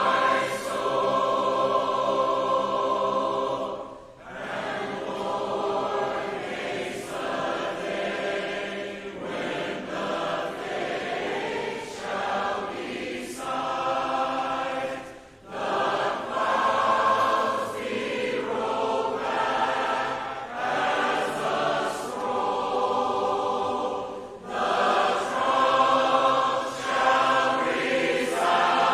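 A church congregation singing the closing hymn a cappella, many voices together, pausing briefly for breath between lines.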